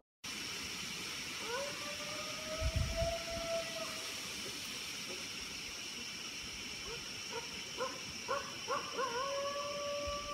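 A canine howling: one long, held howl, then a run of short rising yips, then another long howl near the end, over a steady high hiss. A low thump comes about three seconds in.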